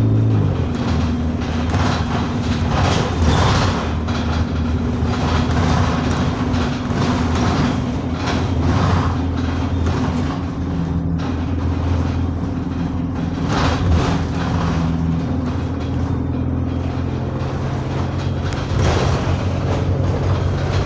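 Bus engine and drivetrain running under way, heard from inside the passenger saloon, with its note dropping sharply at the start and shifting a few times after. Short knocks and rattles come through every few seconds.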